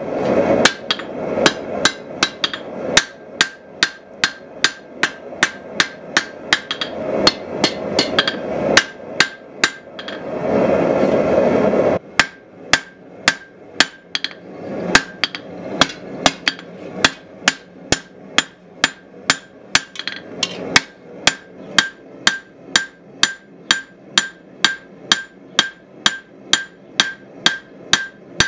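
Hand hammer forging a red-hot steel knife blank on an anvil: a steady run of blows, about two to three a second, each with a short metallic ring from the anvil. About ten seconds in the hammering breaks off for two seconds of steady rushing noise, then picks up again.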